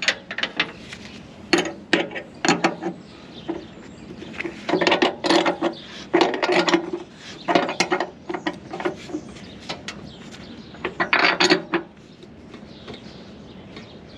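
Metal ratcheting clicks in short runs, coming in about six bursts with pauses between, from a combine's feeder house drum height adjustment being worked with a lever.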